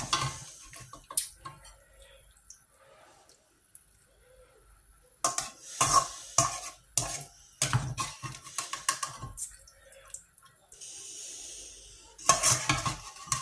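Metal slotted skimmer scraping and clinking against a frying pan while fried potato, onion and green pepper pieces are scooped out of the oil, drained, and tipped into a glass bowl. There are bouts of clatter around the middle and near the end, and a brief steady hiss just before the last clatter.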